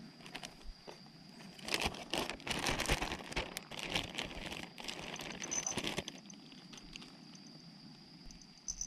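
Plastic zip-top bag crinkling as it is handled and shaken with potato starch inside, loudest from about two to six seconds in.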